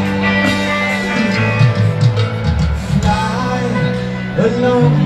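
Live rock band playing through a big outdoor PA, heard from the crowd: electric guitars to the fore, with some singing.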